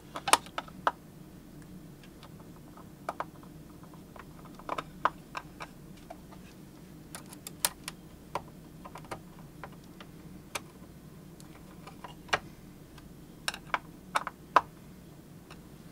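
Irregular light clicks and taps of hands seating a metal plate and routing wires on the underside of a Technics SL-1200 turntable's tonearm base, over a low steady hum.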